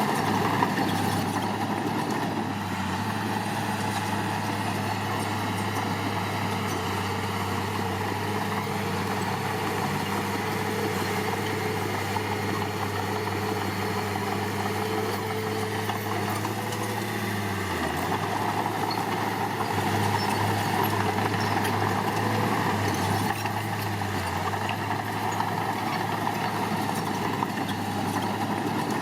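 Diesel engine of heavy construction machinery running steadily. About two-thirds of the way through its note dips briefly, then wavers up and down for a few seconds before settling again.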